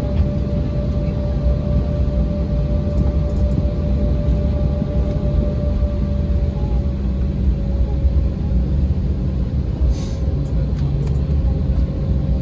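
Cabin noise of a jet airliner taxiing: a steady low rumble of the engines and ground roll with a constant whine over it. A short hiss about ten seconds in.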